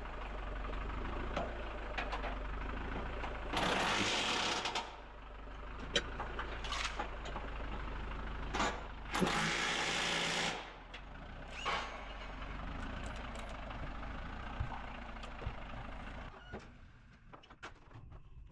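Engine-mount work on an engine just set in a car: scattered metal clinks and tool clatter over a steady low hum, with two bursts of hissing noise about a second and a half long, around four and nine seconds in. The hum fades out near the end.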